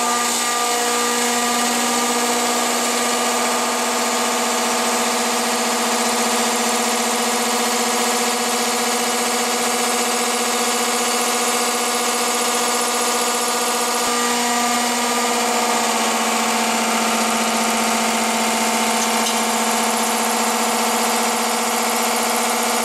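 Hwacheon VT-450 vertical turning center's live milling tool slotting a carbon-steel workpiece at 900 rpm: a steady, loud, pitched machining hum and whine over a hiss, its tone shifting slightly about two-thirds of the way through.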